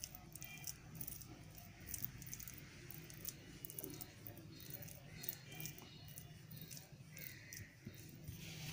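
Spicy sauce being spread over a pizza base: faint scrapes and a scattering of small clicks and taps, over a low steady hum.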